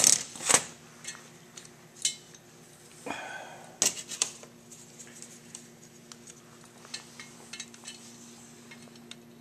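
Cast carburetor parts and a steel combination square clinking and knocking against a stainless steel worktable as they are handled, with several sharp clinks in the first four seconds and fainter ones after. A steady low hum runs underneath.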